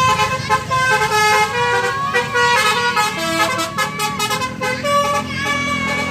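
A bus's Basuri V3 telolet horn, a multi-tone musical air horn, plays a quick tune of stepped notes. A few notes bend down in pitch.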